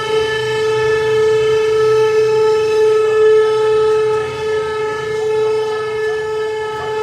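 One long, steady shofar blast held at a single pitch that cuts off abruptly at the end.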